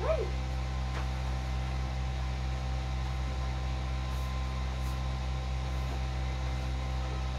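Electric stand fan running with a steady motor hum. A brief squeaky glide right at the start.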